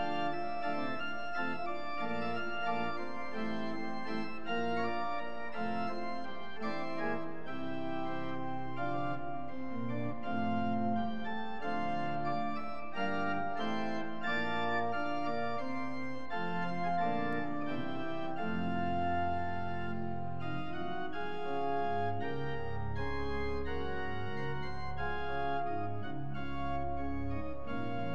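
Church organ playing sustained chords under a moving upper line, with deep pedal bass notes joining in during the second half.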